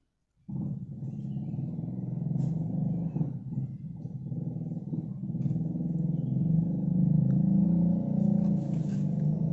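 A low, steady engine rumble starts suddenly about half a second in and grows slowly louder.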